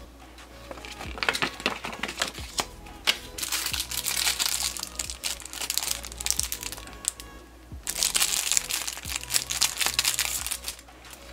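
Thin clear plastic bag crinkling and crackling as hands handle it and pull it open, in two long stretches of a few seconds each. Background music plays underneath.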